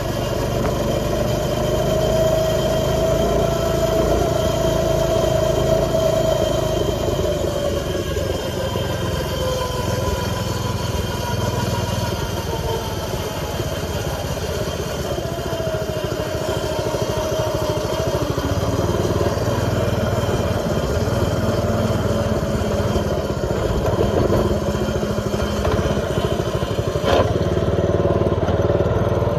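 X1 pocket bike's small two-stroke engine running steadily, its pitch drifting a little, with one sharp click about 27 seconds in.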